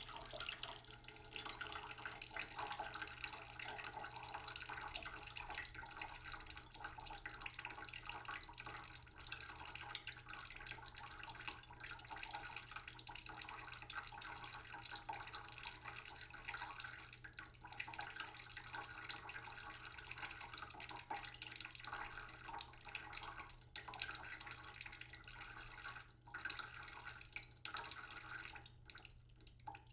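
Water boiling in a saucepan of vegetables, bubbling steadily with many small crackling pops; it grows quieter near the end.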